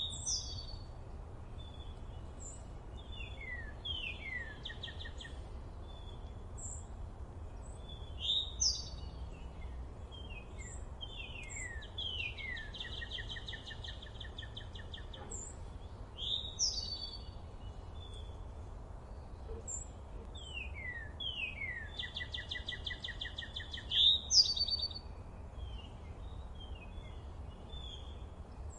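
Several songbirds singing and calling: short high chirps, down-slurred whistles, and a fast trill that comes twice, about ten seconds apart, over a steady low rumble.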